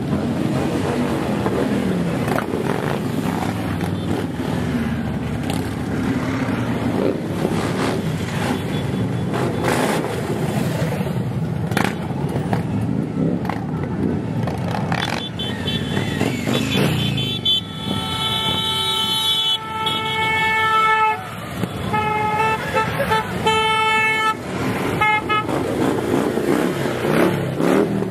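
Harley-Davidson V-twin motorcycles riding past one after another, the engine sound swelling and fading as each goes by. About halfway through a horn sounds, first in one long blast and then in several shorter toots.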